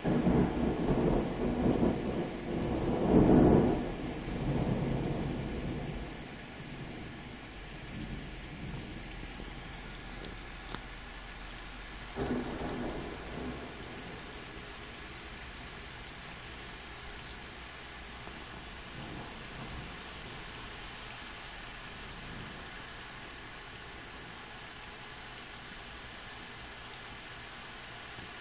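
Thunder rumbling loudly through the first several seconds, swelling to a peak about three seconds in and dying away, then a shorter, fainter rumble about twelve seconds in. Steady rain hisses underneath throughout.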